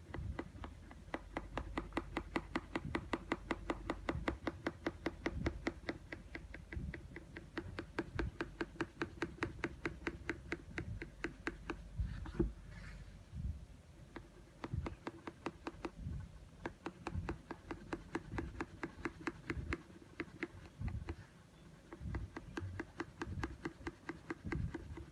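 Yellow coloured pencil scratching on paper in quick back-and-forth shading strokes, as it fills in a drawn area with colour. The strokes are most regular and loudest in the first half and grow more uneven later.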